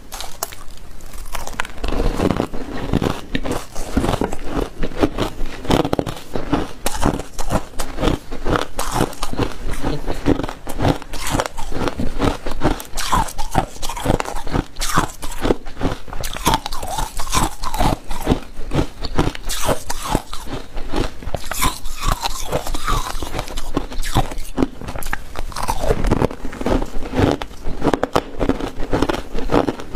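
Ice being bitten and chewed close to the microphone: a continuous run of hard, crackling crunches, several a second.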